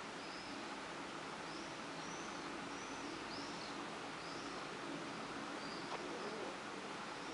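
Steady background hiss with faint, short, high chirps coming irregularly about once a second, like small birds calling.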